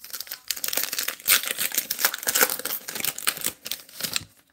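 Topps Heritage baseball card pack wrapper being torn open and crinkled by hand: a dense run of crackling and crinkling that stops just before the end.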